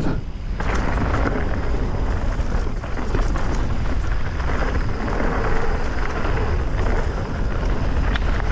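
Mountain bike rolling down a dirt flow trail, its tyre noise under steady wind rumble on the camera microphone, with a few light knocks.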